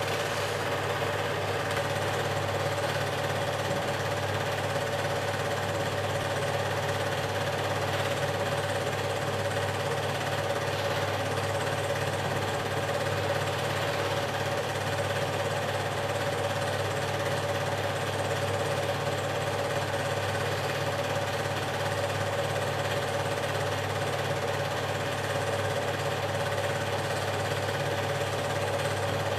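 Super 8 film projector running: a steady mechanical whir and hum that does not change.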